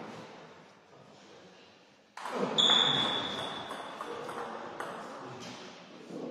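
A sudden loud sound about two seconds in with a high, clear ping that rings on for over a second and fades. A few sharp taps follow near the end, fitting a table tennis ball being bounced before a serve.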